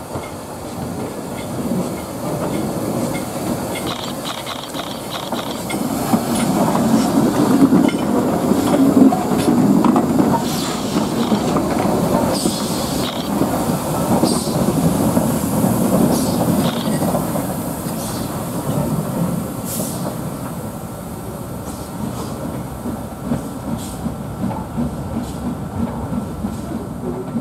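S&DJR 7F 2-8-0 steam locomotive running light at low speed past, with steam hissing and its wheels and motion clanking. It grows louder as it draws close, loudest about eight to twelve seconds in, then slowly fades as it moves away.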